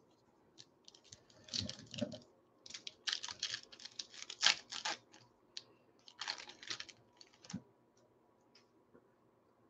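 Foil trading-card pack wrapper being torn open and crinkled by hand: bursts of crackly rustling and clicks over several seconds that stop near the end.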